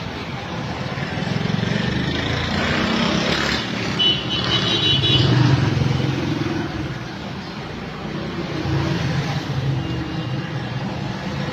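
Street traffic: a steady mix of passing vehicle engines, with a short high-pitched tone about four seconds in.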